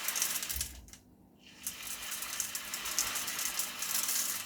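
Coarse dishwasher salt being poured through a funnel into the dishwasher's salt reservoir, a steady grainy hiss and rattle of grains. It stops for about half a second about a second in, then resumes.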